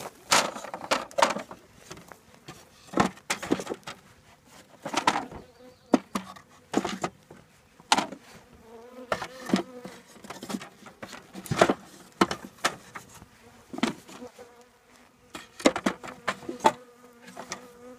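Honeybees buzzing around an open hive, a steady hum. Repeated sharp knocks and clacks throughout as the wooden hive parts and frames are handled.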